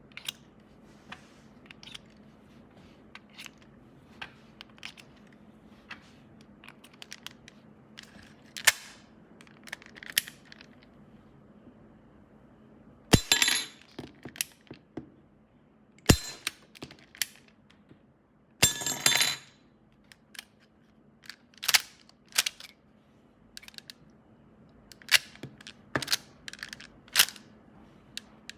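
A toy gun being handled and fired: scattered light clicks and snaps, and several sharp cracks, the loudest about 13, 16 and 19 seconds in, some trailed by a brief rattle.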